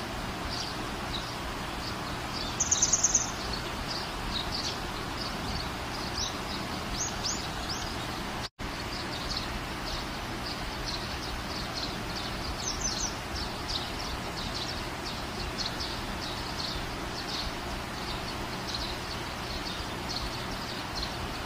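Small birds chirping repeatedly over a steady background hiss, with a louder rapid trill about three seconds in. The sound cuts out for an instant about eight seconds in.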